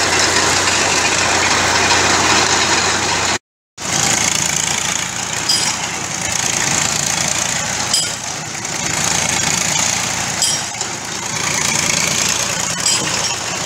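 Engine of a piling winch machine running steadily, with a few short sharp clicks. The sound cuts out completely for about half a second a few seconds in.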